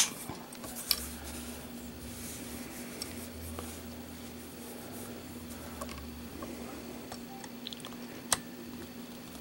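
Faint handling of a trigger pull gauge on a rifle, with soft rubbing and a few small ticks, then one sharp click near the end as the unloaded SKS's trigger breaks and the hammer falls, dry-fired at just over four pounds of pull.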